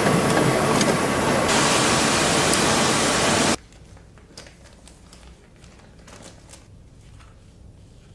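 A loud, steady rushing noise from a running workshop machine cuts off suddenly a little over three seconds in, leaving faint clicks and handling sounds.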